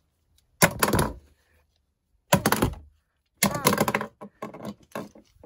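Plastic Minion toy figures dropped one after another onto a wooden cupboard shelf: three clattering thumps, about a second apart, with smaller knocks as they settle.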